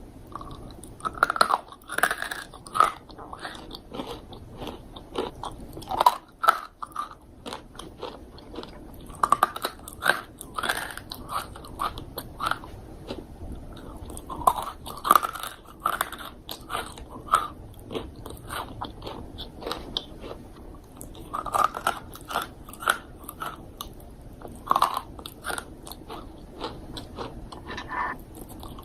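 A person biting into and chewing crunchy dried fruit close to the microphone: repeated sharp crunches in irregular clusters, with softer chewing between bites.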